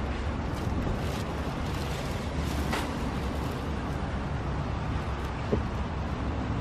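Steady low rumble of parking-lot traffic and wind, with a few faint knocks and rustles as shopping items are set into a car's open trunk.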